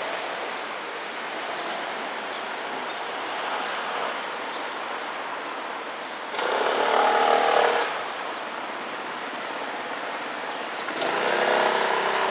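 Road traffic passing on a street beside a railway line, with a steady traffic hum and two louder vehicle passes, about six and eleven seconds in.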